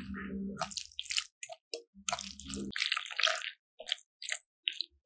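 A metal fork stirring a moist mixture of crumbled tofu, spinach and shredded crab sticks in a glass bowl. Wet squishing comes with many irregular taps and scrapes of the fork against the glass.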